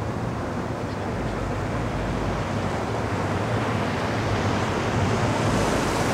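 Water rushing and wind on the microphone, with a low steady engine hum beneath, slowly getting louder.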